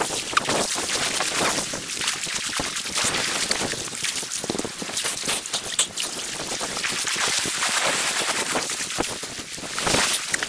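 Shallow seawater splashing and sloshing around a GoPro held at the waterline, a dense crackle of small splashes and bubbles, with surf washing over rocks near the end.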